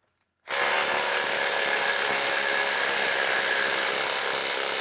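Cordless impact drivers, a DeWalt DCF850 and a Bosch GDX18V-1800 Freak, hammering steadily as they back long 1/2-inch lag bolts out of a wood block. The noise starts suddenly about half a second in.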